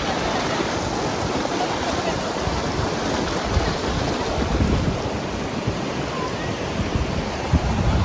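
Rushing river water making a steady noise, with wind buffeting the microphone in low gusts from about the middle on.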